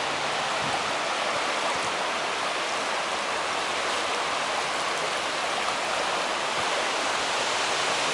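Steady rushing of a creek in flood, running high and fast over its banks after a day of heavy rain.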